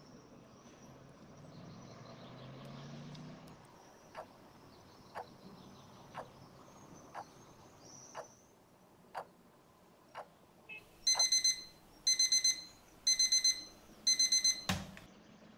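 A clock ticking about once a second, then an electronic alarm going off in bursts of rapid high beeps, about one burst a second. After four bursts it stops with a single thump.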